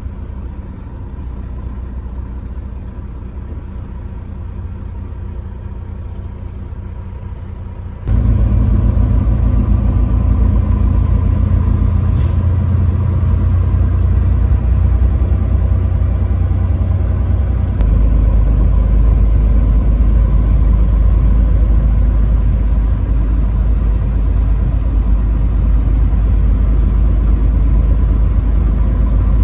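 Steady low rumble of a truck's engine and road noise while driving. It jumps abruptly louder about eight seconds in and deepens again around eighteen seconds.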